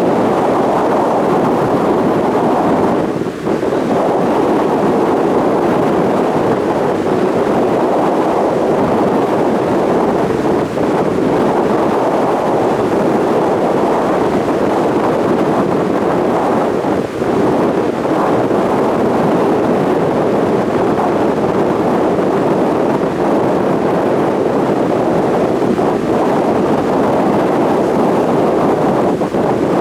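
Steady wind buffeting the microphone over the rush of a ferry underway, its engine and the water along the hull blending into one constant noise.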